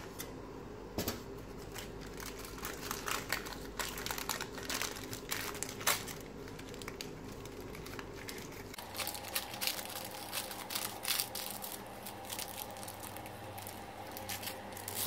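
Paper lining being peeled off the sides of a freshly baked cake and crinkled, an irregular run of crisp crackles.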